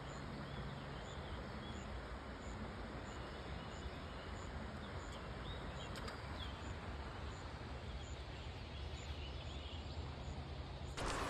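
Steady outdoor background noise by a river, with a few faint bird chirps over it. Near the end it jumps to a louder, steady rush.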